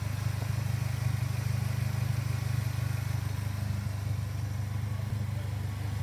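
A 2017 Polaris Slingshot's 2.4-litre GM Ecotec inline-four idling steadily through a custom exhaust.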